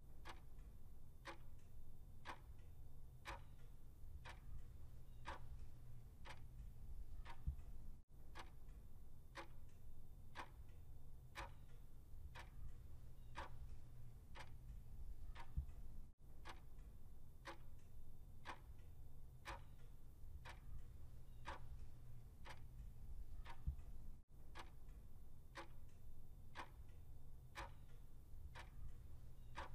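Clock-ticking sound effect for a countdown timer, about one tick a second, over a low steady hum.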